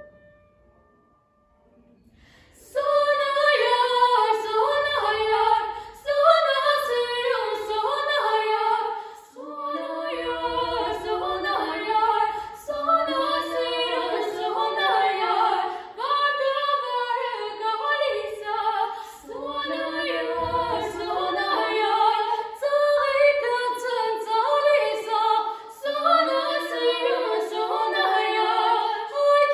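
Two girls singing a vocal duet in phrases with short breaks between them. The singing starts about two and a half seconds in, after one short note and a brief pause.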